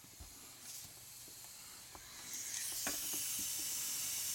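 A few light knocks, then about two seconds in a steady high hiss starts and keeps going.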